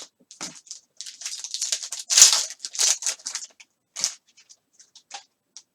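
A trading-card pack's wrapper being torn open and crinkled, densest and loudest between about one and three and a half seconds in, followed by short clicks of the cards being handled.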